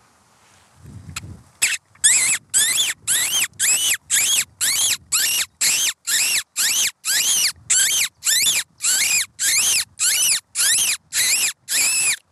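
Predator squeaking to call a fox: a run of about twenty short, high squeaks, about two a second, each rising then falling in pitch, made by mouth into a cupped hand to mimic distressed small prey and draw a fox out of cover.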